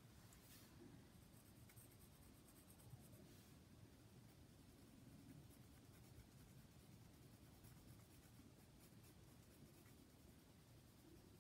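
Faint scratching of a pencil shading on sketchbook paper, steady and quiet.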